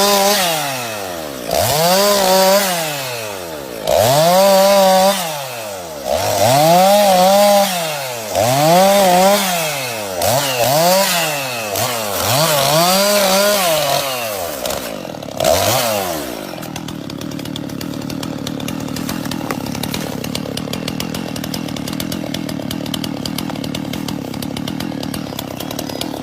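Two-stroke chainsaw cutting wood, its engine revved up and back down about once every two seconds. About sixteen seconds in it drops to a steady idle.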